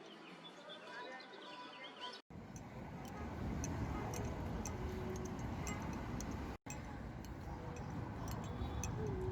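Ambient city sound in three short clips cut together: first a mix of short chirping pitched tones, then a louder steady rumbling street noise with scattered sharp clicks.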